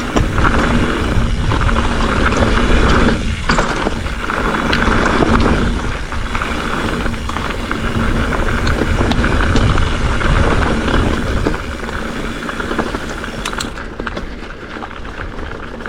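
Specialized Fuse hardtail mountain bike riding down rough dirt singletrack: wind buffeting the microphone, with tyre noise and the rattle and clatter of the bike over bumps. It eases a little near the end.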